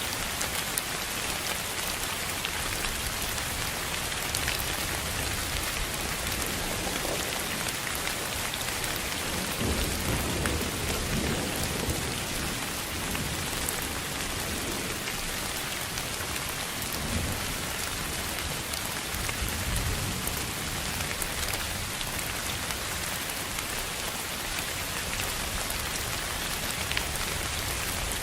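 Steady, even hiss of a sleep-noise track that sounds like heavy rain on a surface, with a few soft low rumbles about ten to twelve seconds in and again near seventeen and twenty seconds.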